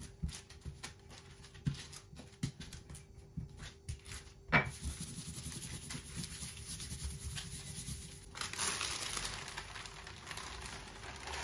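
Baking paper rustling and crinkling as dough is rolled and smoothed by hand between two sheets, with light clicks and one sharp knock about four and a half seconds in as the wooden rolling pin is set down. Near the end the top sheet is peeled off the dough, a louder, steadier rustle.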